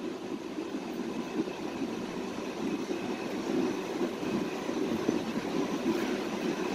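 A steady low mechanical hum of running machinery, even and unbroken, swelling slightly over a few seconds.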